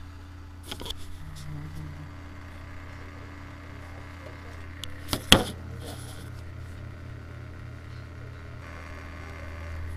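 Desktop PC running with its case open: a steady fan whir and low hum, with a few light clicks about a second in and one sharp knock about five seconds in.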